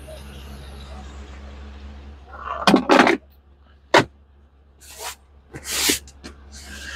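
Steady low hum of the truck's gasoline V8 idling, with a run of loud knocks and rustles in the second half as someone handles the open cab door and gets into the cab.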